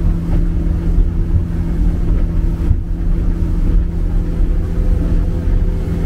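A vehicle engine running at a steady drone over a low rumble, with a brief dip about two and three-quarter seconds in.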